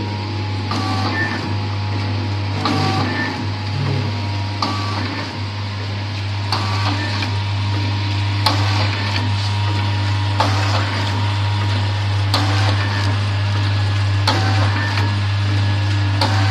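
Automatic auger-filler sachet packing machine running: a steady low motor hum with a sharp mechanical clack about every two seconds as it cycles through its packing strokes.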